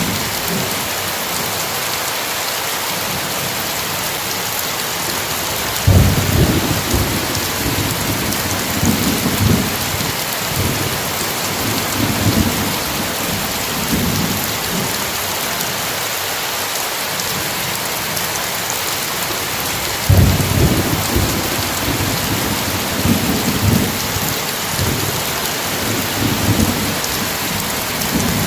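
Steady heavy rain with two rolls of thunder, one about six seconds in and one about twenty seconds in, each starting suddenly and rumbling on and off for several seconds.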